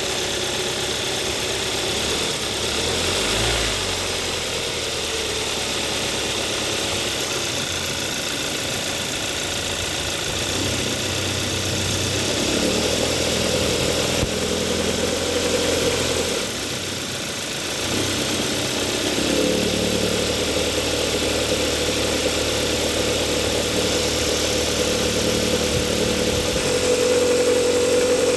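2014 Hyundai Sonata's 2.4-litre GDI four-cylinder engine running with a rattle, its speed shifting a few times and getting louder near the end. The owner traced the rattle to the air-conditioning compressor: it is present whenever the AC is engaged.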